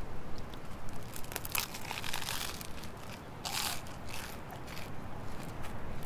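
Close-miked eating: biting into and chewing a hamburger with toasted bun and lettuce, with two louder stretches about two and three and a half seconds in.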